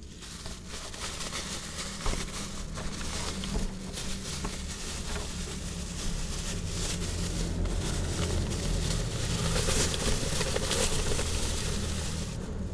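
Close rustling and scraping of cat fur brushing against the camera's microphone as the cats press against it, with a sharp knock about two seconds in. The rustling grows louder toward the end.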